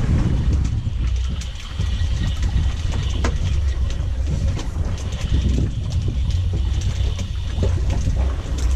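Uneven low rumble of wind and sea against a fishing boat under way, with a few light knocks.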